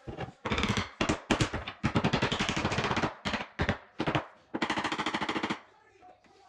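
Cordless impact driver driving screws, a rapid hammering rattle in several short bursts, the longest lasting over a second, as the cabinet is screwed into place.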